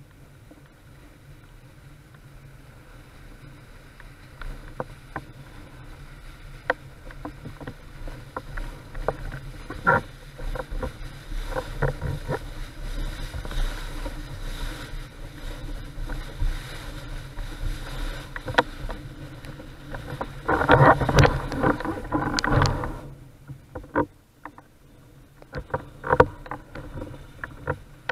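Starboard Carve windsurf board planing across small chop: water rushing and spraying along the hull with frequent sharp slaps, over a steady low rumble of wind on the microphone. The spray swells into a louder surge about two-thirds of the way through, dips briefly, then the slapping picks up again near the end.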